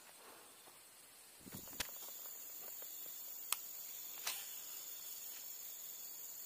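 Steady high-pitched insect chorus, crickets or similar, setting in about a second and a half in after a quieter stretch, with a few sharp clicks over it.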